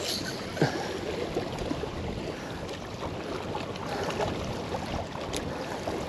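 Steady wind buffeting the microphone over small waves lapping against the rocky bank, with a couple of faint knocks.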